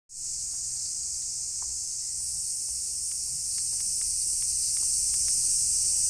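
Steady, high-pitched chorus of summer cicadas, a continuous shrill hiss that grows slightly louder.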